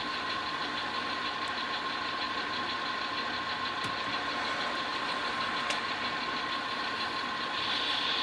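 Model diesel locomotive's onboard sound running a steady diesel engine idle, with a fast, even throb. A brighter hiss comes up near the end.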